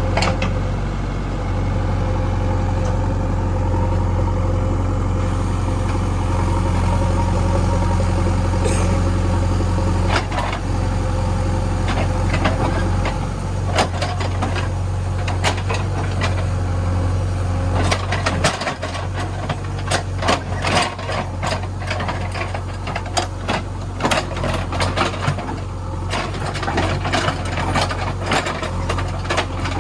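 JCB 3DX backhoe loader's diesel engine running steadily with a low hum. From about halfway through, frequent irregular clanks and rattles are added over the engine.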